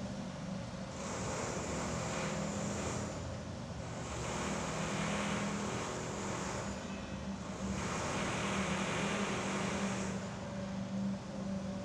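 A steady low machine hum, with a hiss that swells and fades about four times.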